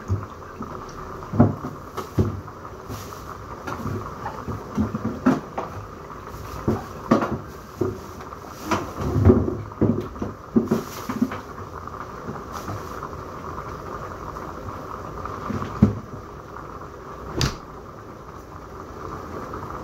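Kitchen work at the counter: irregular knocks and clatter of utensils and dishes, some in quick little clusters, over a steady faint hum.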